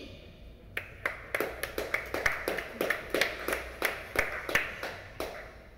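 Scattered hand claps from a few people in a small audience: separate, uneven claps, about three or four a second, starting about a second in and stopping about a second before the end.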